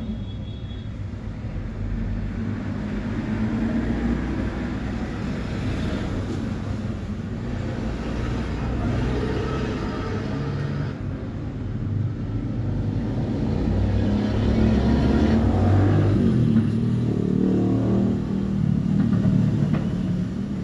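Low rumble of motor vehicle noise, swelling and easing, loudest in the second half.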